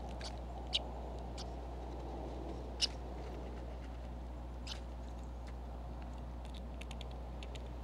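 Red squirrel eating from a plastic tray of mixed bird seed: scattered sharp clicks and crackles of seeds being cracked and shifted, coming faster near the end, over a steady low hum.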